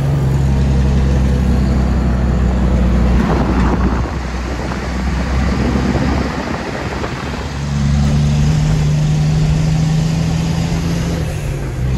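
Tractor-trailer's diesel engine pulling steadily uphill in a lower gear through a hairpin bend, heard from inside the cab. The engine drone eases back for a few seconds midway and comes back strong near the end.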